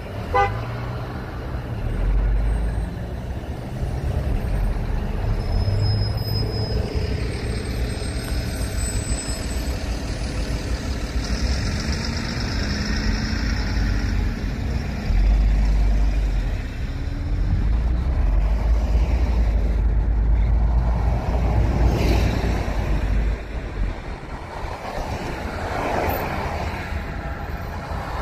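Road vehicle noise: a steady low rumble of motor traffic.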